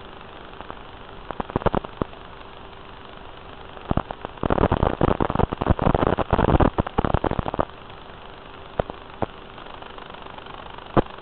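Hiss and crackling static on the audio of an analog FPV drone video link, with a faint steady hum. Scattered crackles turn into a dense run of loud crackling about four and a half seconds in, lasting about three seconds, then die back to occasional pops.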